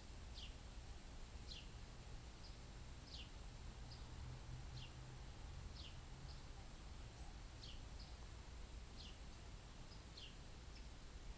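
A bird calling: a short, high note sliding downward, repeated about every one and a half seconds, with fainter short notes in between, over a steady low rumble of outdoor background noise.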